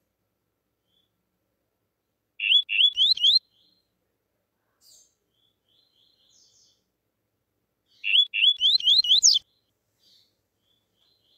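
Male double-collared seedeater (coleiro) singing the 'tuí-tuí' song type: two loud phrases, about two seconds in and again near eight seconds, each a quick run of five or six rising whistled notes. Faint soft notes come between the phrases.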